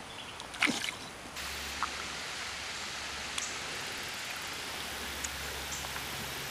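Shallow creek water running steadily over a rocky bed, a plain hiss that steps up in level a little over a second in. A short sharp knock stands out about half a second in, with a few faint ticks later.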